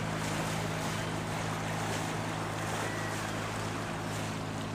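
Small wooden passenger trip boat's engine running steadily at low speed as the boat motors across the harbour, a constant low hum.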